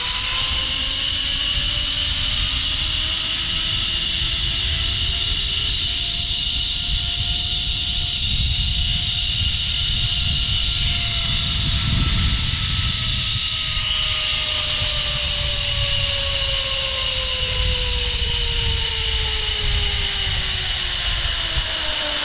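Zip-line trolley pulleys running along a steel cable, a whine that rises in pitch as the rider picks up speed and falls slowly as the rider slows toward the far end, with wind buffeting the microphone.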